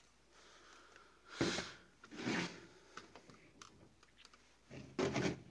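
Quiet handling of a Mamiya RZ67 medium-format camera body and its 120 film back: two soft scuffs about one and a half and two and a half seconds in, then a few faint small clicks.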